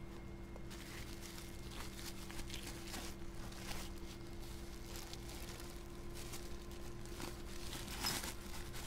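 Plastic bubble wrap crinkling and rustling faintly as hands handle a wrapped item and rummage through packing in a cardboard box, a little louder near the end. A steady low hum runs underneath.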